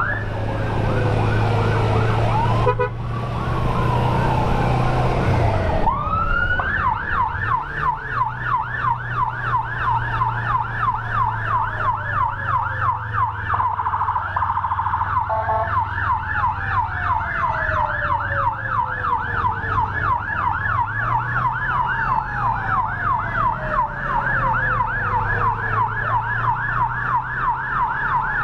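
Emergency sirens from an ambulance escort convoy: a fast yelp siren sweeping rapidly up and down, and a second siren's long falling tones repeating every few seconds, over a steady motorcycle engine hum. For about the first six seconds a loud rushing noise covers the yelp, which picks up again after that.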